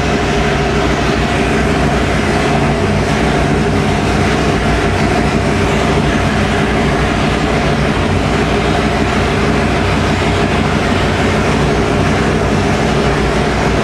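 Roots-supercharged 572 cubic inch big-block Chevy V8 running steadily on the engine dyno, a loud, even rumble whose pitch does not change.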